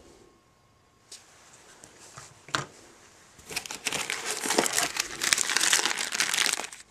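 Plastic parts bag crinkling as it is handled, a dense run of crinkling over the second half after a quieter start with a couple of light taps.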